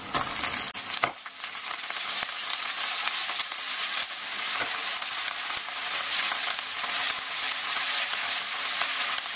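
Shredded cabbage dropped into a wok of hot oil and onions, with a few soft knocks as it lands, then a steady sizzle of frying from about a second in.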